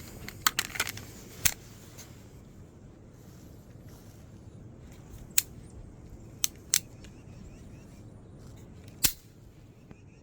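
Beretta pistol clicking and snapping: about eight sharp clicks, several close together in the first second and a half, then single ones spread out, the last and loudest about nine seconds in.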